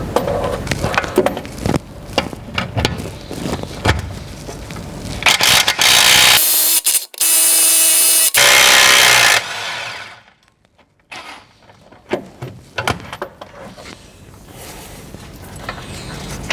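Work on a car's brake assembly: scattered metal clicks and knocks of tools, then a power tool running loudly for about four seconds, a hissing whir with a steady tone, stopping suddenly, followed by more clicks.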